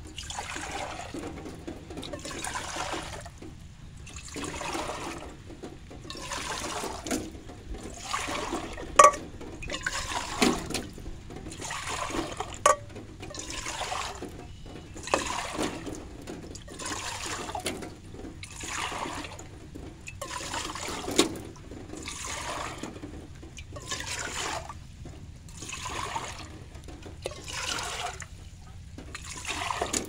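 Water poured back and forth between a dark nonstick saucepan and a stainless steel saucepan: a splashing pour about once a second, with a few sharp clicks along the way.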